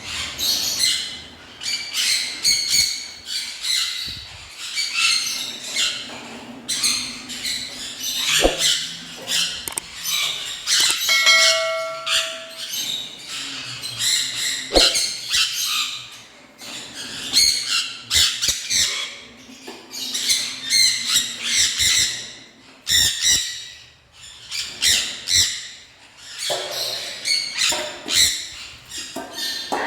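A flock of small cage birds chirping and squawking continuously, many calls overlapping. One steady held note stands out for about a second and a half, some eleven seconds in.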